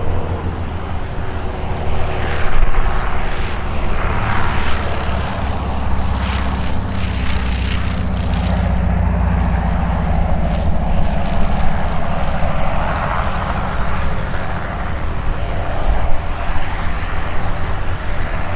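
Van's RV-6A light aircraft's piston engine and propeller droning on the landing approach and rollout, the propeller's beat plainest as it passes close about halfway through.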